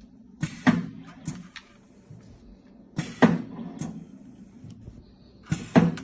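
Ultrasonic welding machine for plastic animal tags cycling. A sharp mechanical stroke comes three times, about every two and a half seconds, each followed by smaller knocks, over a steady low hum.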